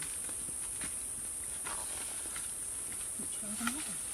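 Steady high-pitched insect drone, with a few sharp snaps and rustles of people moving through undergrowth.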